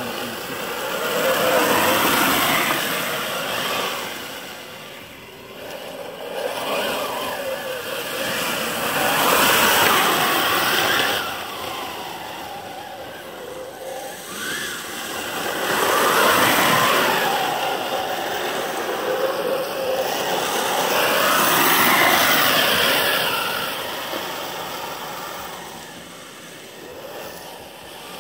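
Motors and tracks of a 1:8 scale RC Ripsaw tracked tank running, with a whine that rises and falls in pitch as it speeds up and slows down, swelling about four times.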